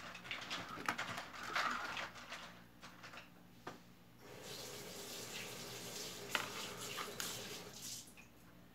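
Clinks and knocks of small objects being handled, then water running from a tap for about four seconds, stopping shortly before the end.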